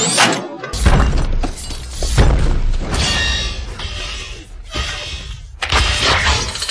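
Designed Transformers-style robot sound effect: a series of sharp crashing hits over a deep rumble that comes in just under a second in, easing off mid-way, then a fresh loud hit near the end.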